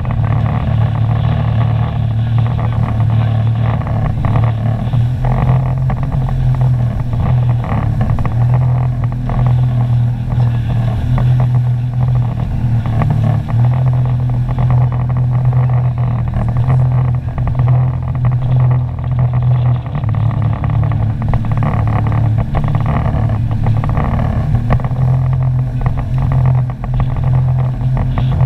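Sea-Doo personal watercraft engine running at a steady cruising speed while underway, its pitch holding nearly level with small dips, over a hiss of water and wind.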